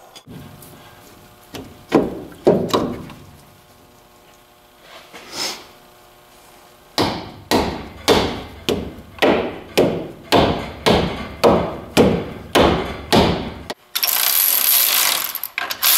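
A mallet striking a differential carrier to drive it, with its freshly pressed bearings and shims, into the Dana 44 axle housing: a few scattered knocks, then a steady run of blows about two a second. Near the end a steady whir, like a power tool running in a bearing cap bolt.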